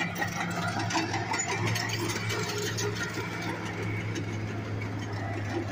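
An engine running steadily with a low, even hum, with irregular clatter and outdoor noise over it.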